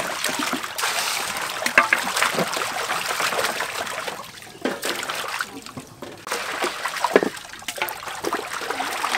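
Water splashing and sloshing in a large aluminium basin as raw chicken legs are washed by hand, in irregular splashes with brief lulls.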